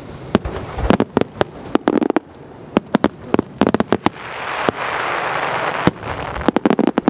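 Aerial fireworks bursting, many sharp bangs in quick, irregular succession, with a dense hissing crackle for about two seconds in the middle.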